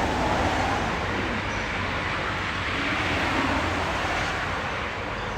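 Steady vehicle traffic noise, a continuous low rumble and hiss, with faint voices in the background.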